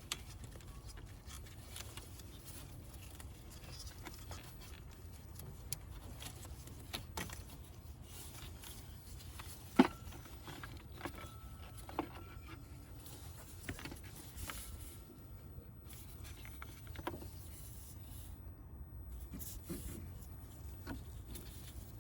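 Scattered light clicks and knocks of handling, with one sharper knock about ten seconds in, over a low steady hum.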